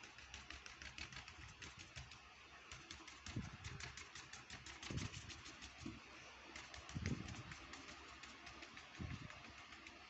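Paintbrush dabbing acrylic paint onto watercolour paper on an easel: a quick run of light taps, several a second, with a short pause about six seconds in. Four dull thumps come in among the taps.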